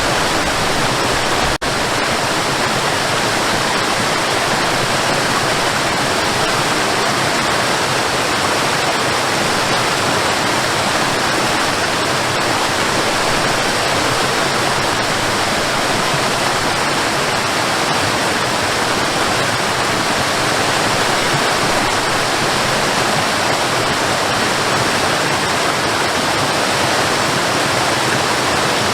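Waterfall: a steady, even rush of falling water, with a momentary dip about one and a half seconds in.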